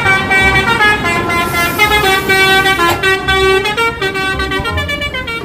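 Bus telolet horn, a set of multi-tone horns, playing a tune of held notes that step up and down in pitch.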